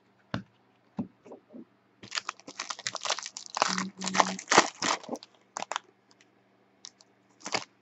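Foil wrapper of a Panini NBA trading-card pack being torn open and crinkled by hand: a few light clicks, then about three seconds of dense crinkling and tearing, and a short last crackle near the end.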